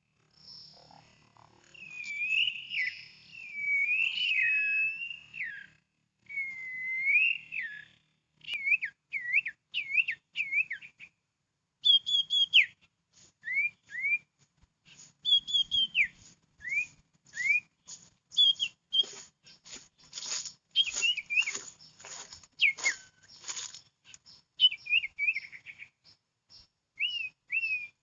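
Small songbirds whistling and chirping: warbled whistle phrases at first, then short rising and falling chirps, used to lure sirtu birds to limed twigs. A quick run of sharp ticks or flutters is mixed in about two-thirds of the way through.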